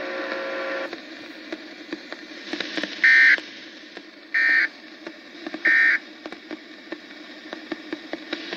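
Three short, high-pitched data bursts from a RadioShack weather radio's speaker, about 1.3 seconds apart: the NOAA Weather Radio SAME end-of-message code that closes an Administrative Message broadcast. A steady tone stops about a second in, and faint irregular clicks run through the hiss.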